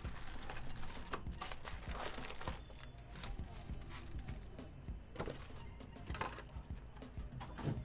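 Foil trading-card packs crinkling and rustling as they are pulled from a cardboard box and laid down, with light knocks of the box, over background music.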